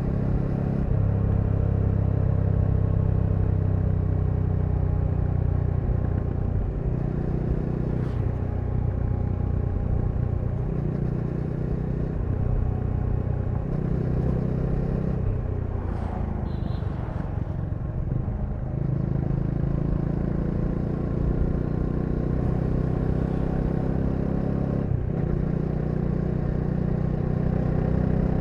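Bajaj Dominar 400's single-cylinder engine running under way, its note rising and falling in steps with throttle and gear changes. It eases off about sixteen seconds in and picks back up around nineteen seconds.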